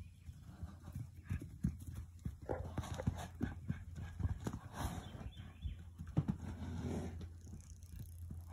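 Hooves of a mare and her young foal trotting and cantering over grass and packed dirt: a quick, irregular run of thuds that picks up about a second in.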